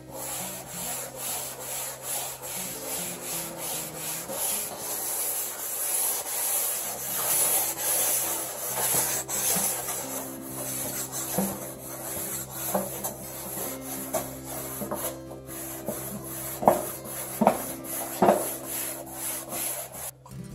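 A pumice grill brick scrubbing the wet, hot stainless steel top of a Kitchen Queen wood cook stove, rasping back and forth in quick repeated strokes, with a few sharper, louder strokes near the end. It is steam-cleaning the cooktop: water poured on the roughly 200-degree steel while it is scrubbed.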